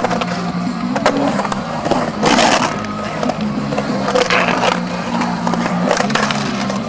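Skateboard wheels rolling and carving on the concrete bowl, with scattered clacks of the board and a louder scrape about two seconds in, under background music with a steady bass line.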